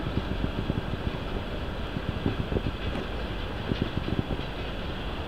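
Passenger coaches of a train hauled by a ChS7 electric locomotive rolling past: a steady rumble with many short, irregular knocks of wheels on the rails.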